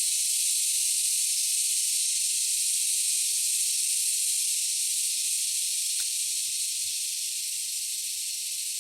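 A steady high-pitched hiss throughout, with a faint click about six seconds in.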